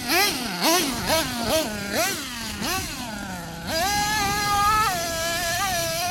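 Losi LST2 RC monster truck's nitro engine revving in quick throttle blips, its high pitch rising and falling about twice a second, then held at high revs with small wavers for the last couple of seconds.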